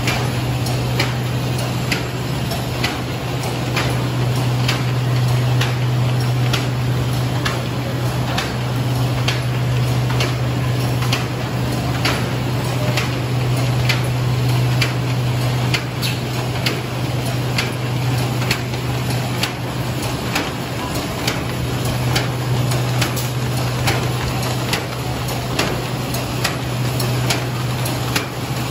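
A330 paper bag making machine with its inline handle unit running at production speed: a steady low hum under a regular sharp clack about once a second.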